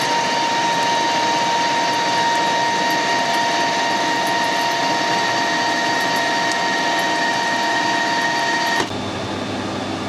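Metal lathe turning a bar, taking a 1.5 mm cut: the machine runs steadily with a high, even whine from the cut. The whine stops suddenly near the end while the lathe keeps running.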